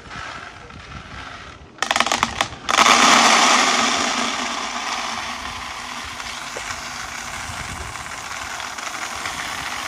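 Dry beans poured in a stream from a plastic basin held high into a plastic bucket, a way of winnowing them clean. About two seconds in there is a burst of rattling, then a dense, continuous rattle of beans hitting plastic that slowly fades.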